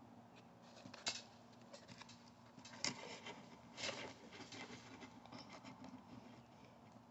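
Fingers handling a clear plastic blister pack with a die-cast model truck inside: faint crinkles and clicks of the plastic, with three louder clicks about one, three and four seconds in.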